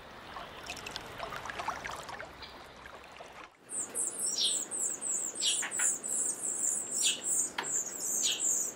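Nestling birds begging in the nest with rapid, high-pitched chirping that starts suddenly about three and a half seconds in, with several lower, drawn-out calls mixed in.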